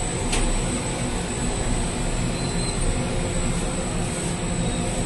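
Steady roar of bakery machinery, the flatbread oven and its equipment running, with a thin high whine over it and one light click shortly after the start.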